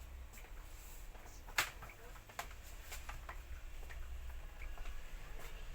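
Scattered light clicks and taps of small hard objects being handled, the sharpest about a second and a half in, over a low steady hum.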